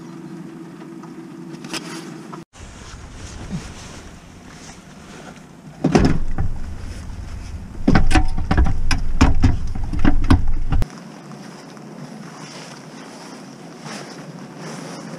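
Rumbling wind and handling noise on the microphone, with a run of irregular knocks and rustles that is loudest from about six to eleven seconds in. A faint steady hum is heard for the first couple of seconds.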